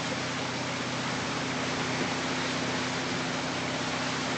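Motorboat engine running steadily at towing speed, under a constant rush of churning wake water and wind on the microphone.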